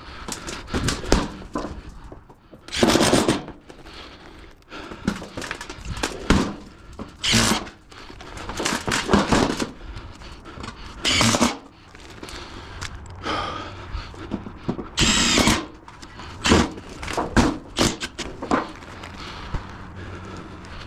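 Cordless power drill driving screws into metal roof panels in several short bursts a few seconds apart, with knocks and rattles of the sheet metal between them.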